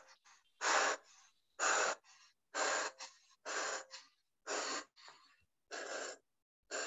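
A girl breathing hard in loud, rhythmic gasps, about one each second, with short silences between them.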